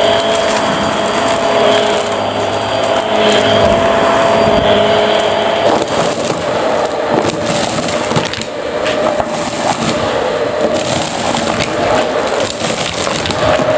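Vacuum cleaner running with a steady motor whine as its hose sucks up a pile of loose debris. Bits rattle and crackle up through the hose, more thickly in the second half.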